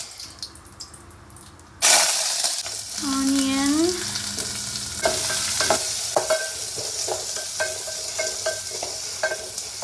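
Hot oil sizzling in a cooking pot as tempering spices and onion go in: the loud sizzle starts suddenly about two seconds in and keeps going. A ladle clinks against the pot again and again as it is stirred.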